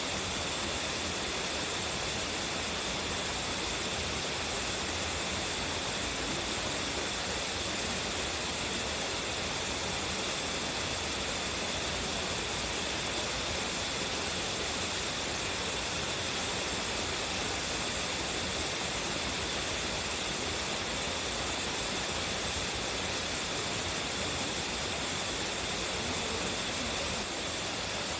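Tsuzumigadaki waterfall with a strong flow, its falling water making a steady, dense rush that does not change.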